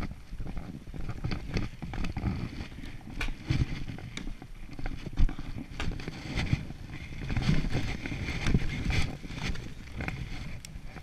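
Skis sliding and hissing through fresh powder snow, with gusty wind noise on the microphone and scattered short scrapes and clicks.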